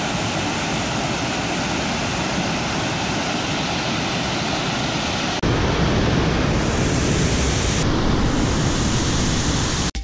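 Waterfall rushing steadily. About five seconds in it switches abruptly to a louder, deeper rush.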